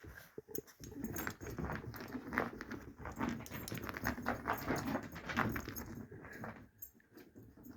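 A dog's paws scrabbling and claws clicking on the floor in quick, irregular taps as she chases a foot and runs about, dying down near the end.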